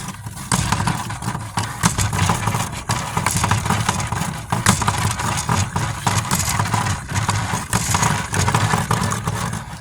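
An engine running steadily with a low rumble, a spinning part turning on it, with irregular sharp clicks and rattles throughout.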